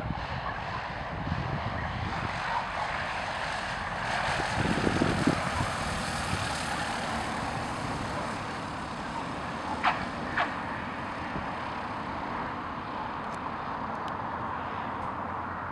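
Socata TB-10 Tobago light single-engine plane landing. Its engine and propeller noise swells as it passes close, then holds steady as it rolls out. About ten seconds in come two short squeaks, half a second apart, from the tyres touching the runway.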